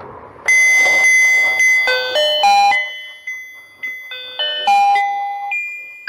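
An electronic jingle from a battery-powered rotating fishing game toy: a simple tune of bright beeping notes, one after another, starting about half a second in after a brief noisy rustle.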